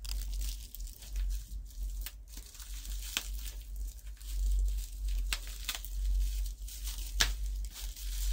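Plastic bubble wrap and packing tape being crinkled and pulled apart by hand, with scattered sharp crackles over a low steady hum.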